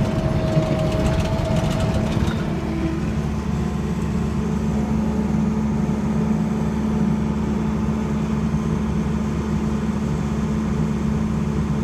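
Bulldozer's diesel engine running, heard from inside the cab. Rattling and a steady high whine over the first two seconds or so stop, leaving a steady engine drone.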